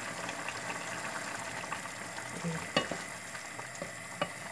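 Green beans and meatballs cooking in a pan over a gas flame, giving a steady sizzle. A wooden spoon stirs them and clicks sharply against the pan a couple of times in the second half.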